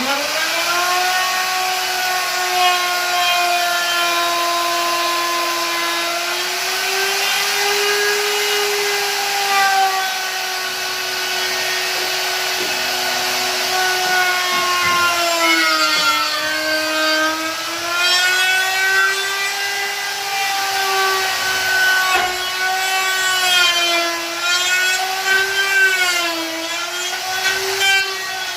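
Electric wood router switched on and running at high speed in a steady whine, its pitch sagging and recovering again and again as the bit is loaded in the cut.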